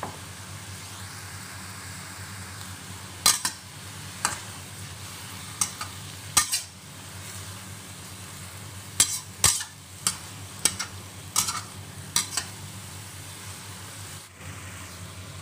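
Bean sprouts, bell peppers and tofu sizzling in hot oil in a stainless steel wok. A metal spatula scrapes and clanks against the pan in irregular strokes from about three seconds in, as the food is tossed.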